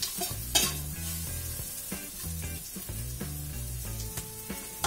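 Steel spatula scraping and clacking against a wok while sliced shallots, garlic and chilli sizzle in a little oil, being stir-fried until they dry out. The loudest clack comes about half a second in.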